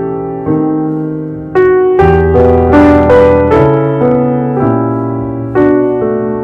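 Background piano music: a melody of struck notes that each fade away, growing fuller and louder about two seconds in.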